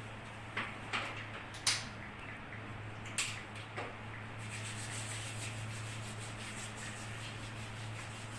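Hands rubbing and pressing along a person's back during a spinal examination, a steady rubbing from about the middle on, after a few sharp clicks or taps. A constant low hum sits underneath.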